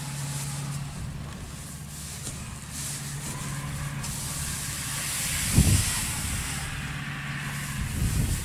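Engine running steadily with a low hum, a hissing rush that swells about halfway through, and two low thumps, one just past the middle and one near the end.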